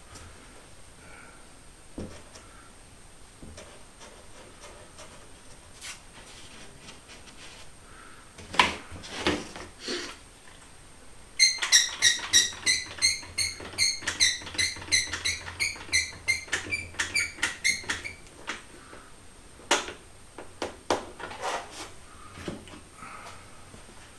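One-handed trigger bar clamps being tightened down on plywood: a run of squeaky, ratcheting clicks, about four or five a second, for several seconds in the middle. Before and after it come separate clunks and knocks as the clamps and boards are handled.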